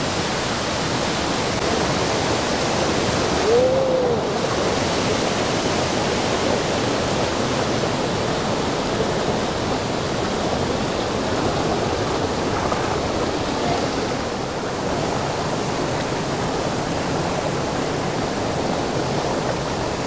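Waterfall pouring steadily, a constant even wash of water noise. One brief rising-and-falling tone comes through about four seconds in.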